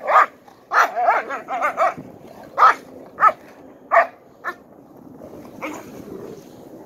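Pointer barking in play: a quick run of barks in the first two seconds, then single barks spaced about half a second apart. The barks die away after about four and a half seconds, with one faint last bark near the end.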